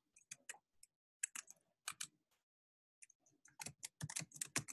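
Computer keyboard keystrokes: a few scattered taps, a pause, then a quick run of typing near the end.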